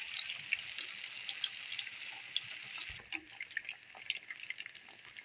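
Cornflour-coated beef pieces deep-frying in a karahi of hot oil: a steady crackling sizzle that turns quieter about three seconds in, with a single sharp click there.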